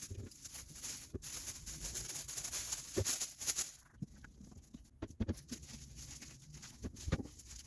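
Close-up hand work on small metal reel parts: soft scratching and rustling with many light clicks and taps. The noises are dense for the first four seconds, then thin out to scattered taps.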